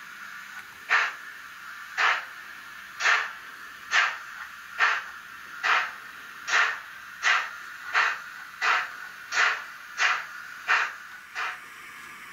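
Sound decoder of a Roco HO-scale BR95 steam locomotive model playing exhaust chuffs through its small speaker over a steady hiss. The chuffs come about once a second and quicken to about three every two seconds as the locomotive gets under way; the last one is fainter.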